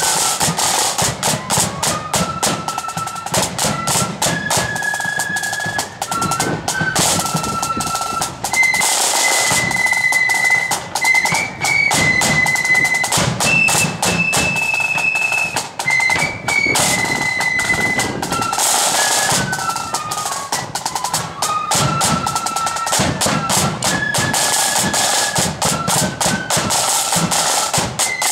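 Blood-and-thunder marching flute band playing a tune: flutes carry a stepping melody over rapid snare drumming and drum rolls, with a bass drum underneath.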